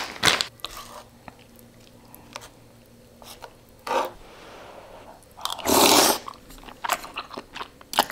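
Close-miked mukbang eating of spicy instant noodles: a loud slurp of noodles about six seconds in, followed by chewing with small wet clicks. Before that, only a few soft sounds as the noodles are stirred in the pan.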